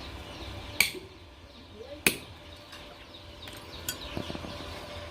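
Hammer striking metal: two sharp blows about a second and a half apart, the first with a brief ring, then a lighter tap near the end.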